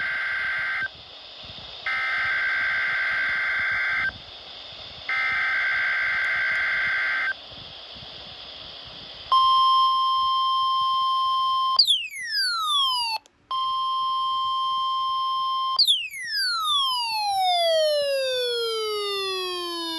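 NOAA Weather Radio alert signalling. Three bursts of buzzy SAME header data tones come about a second apart. After a short pause, a steady 1050 Hz weather radio alert tone starts about halfway through, and twice gives way to long falling sweeping tones.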